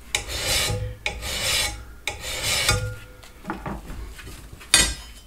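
Hand file drawn across the steel edge of a lawnmower blade held in a vise: three long strokes about a second apart, then softer scraping and one short, sharp stroke near the end. These are the last few passes taking metal off the blade to bring it into balance.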